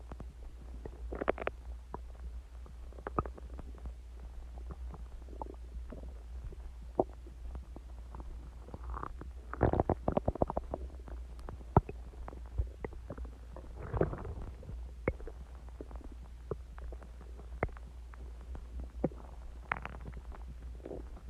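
A person's stomach growling, about an hour after eating and drinking Coke. It makes irregular gurgles and sharp pops, with the loudest gurgling bursts about ten and fourteen seconds in, over a steady low hum.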